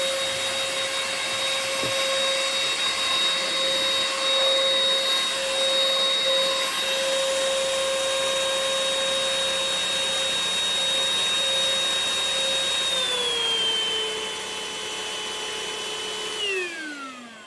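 UML0 N8 cordless stick vacuum running with a steady high whine and rushing air. About two-thirds of the way through, its pitch steps down a little and it runs quieter. Near the end it is switched off and the whine falls away as the motor winds down.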